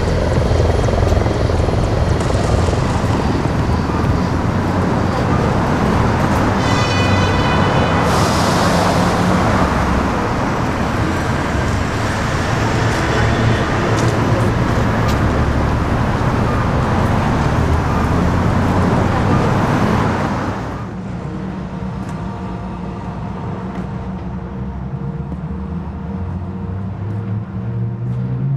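Loud, steady rumble of vehicle-like noise. It drops suddenly to a quieter rumble about two-thirds of the way through.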